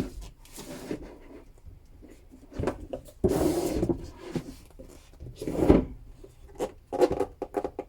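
Handling noise from a keyboard case and its packaging: rubbing and scraping with a few short knocks, a longer scrape about three seconds in and a run of knocks near the end.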